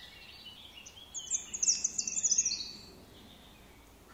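A small bird giving a rapid run of high, loud chirps close by for about a second and a half, over faint birdsong in the background.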